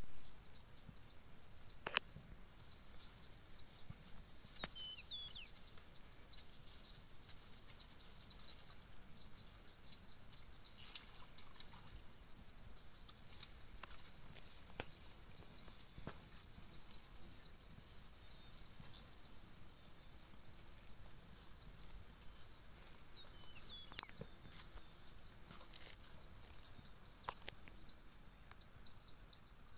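Evening chorus of crickets or katydids: one high, steady trill, with a second insect's evenly pulsed song over it that stops near the end. A few faint clicks.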